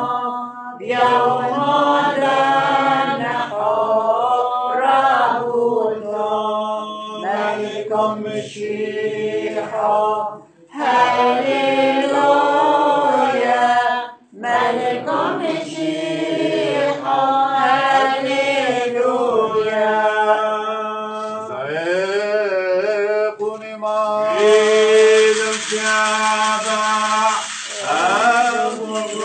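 Clergy chanting a Syriac Orthodox liturgical chant in long melodic phrases with short breaths between them. A hissing noise joins the singing for a few seconds near the end.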